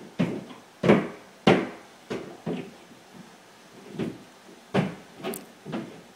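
Roofers' hammers striking the roof above, heard through the ceiling as a string of about ten hard knocks at uneven spacing, with no steady rhythm.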